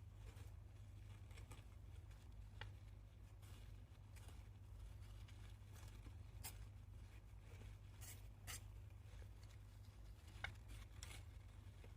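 Near silence with a hamster's faint, scattered clicks and light scratching, a handful of short ticks spread through, the sharpest about ten and a half seconds in.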